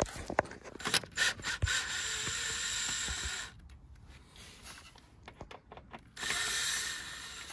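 Ryobi cordless drill-driver running to back out a screw at the air strut, in two runs: one of a second and a half about two seconds in, and a shorter one near the end. Clicks from tools being handled come before the first run.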